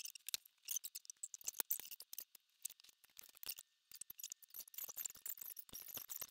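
A quick, irregular run of light, sharp clicks and ticks from small hard things being handled, with a short lull about three and a half seconds in.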